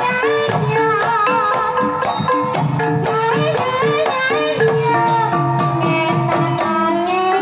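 Javanese Banyumasan gamelan playing a tayub piece: kendang hand-drum strokes over ringing bronze pot gongs, with a sinden's voice gliding above them.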